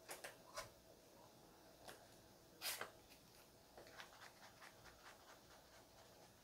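Faint handling of a thin taped wooden board on a wooden workbench: a few soft taps, a brief scrape about two and a half seconds in, then a run of light ticks.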